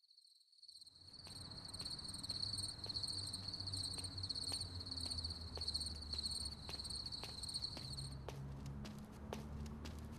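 A cricket trilling steadily in a fine pulsing chirp, which stops about eight seconds in, over a low hum. Sharp ticks come about twice a second and grow quicker near the end.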